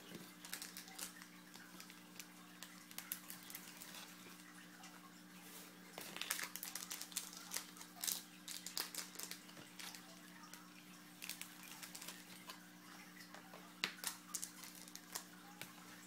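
Irregular crinkling, rustling and light clicking of trading-card boxes and foil packs being handled and opened, busier from about six seconds in.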